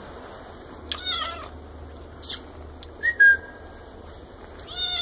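Kitten mewing, two high, wavering, falling meows, about a second in and again at the end. Around three seconds in there is a short, steady, whistle-like squeak with a couple of clicks.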